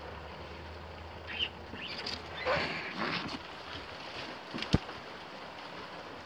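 Soft rustling and scraping among dry debris, with a low hum that stops about two and a half seconds in and a single sharp knock a little before five seconds in.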